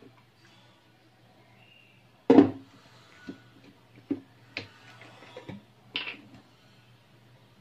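Kitchen items being handled, knocking and clattering about six times over a steady low hum; the first knock, about two seconds in, is the loudest.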